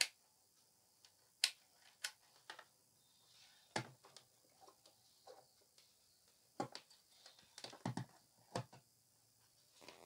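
Handling noise from a multimeter and its test leads: a scattered series of light clicks and taps as the probes and meter are picked up, set down on a table and brought to a refrigerator compressor's terminal pins.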